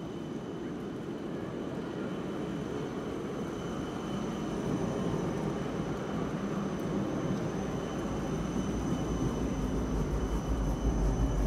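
Electric tram running past on street tracks: a steady rolling rumble with a faint high whine. The rumble grows louder toward the end.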